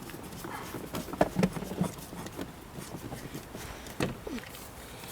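A few scattered light knocks and clicks from parts being handled at the car door, with the loudest knocks around a second in and again about four seconds in.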